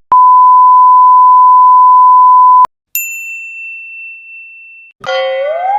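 A censor-style beep: one loud, steady, pure high tone held for about two and a half seconds, cutting off sharply. A bright ting follows, ringing and fading over about two seconds. Near the end a cartoon boing begins, its pitch rising and wobbling.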